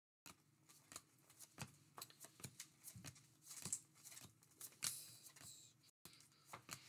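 Faint ticks and soft slides of 2024 Topps Update baseball cards being flicked through by hand one after another, card stock rubbing on card stock, with a louder swish about five seconds in.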